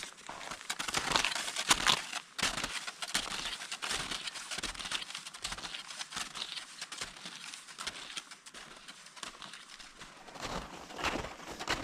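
Snowshoe footsteps crunching and squeaking in packed snow, an irregular run of steps that is loudest in the first two seconds.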